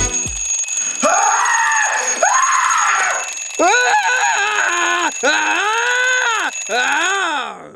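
Twin-bell alarm clock ringing steadily. Over it, a man gives a series of long drawn-out cries, each rising and then falling in pitch. Both stop abruptly near the end.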